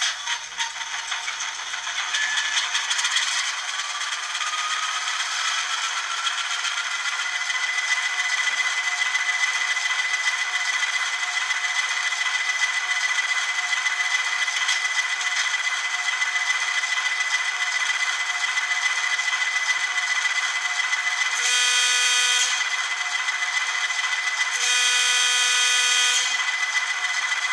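ESU LokSound 5 Micro sound decoder playing its ALCO 6-539T diesel sound through an 8x12 mm sugar cube speaker in an N scale Atlas RS-1, thin with no bass. The prime mover sound comes on suddenly, with a whine rising in pitch over the first several seconds before settling into a steady idle. Near the end the horn sounds twice in short blasts.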